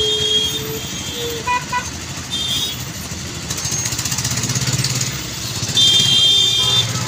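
Slow road traffic in a jam: vehicle engines running under repeated horn honking. There are two quick beeps about a second and a half in, shorter high honks at the start and around two and a half seconds, and a longer, louder high-pitched horn blast near the end.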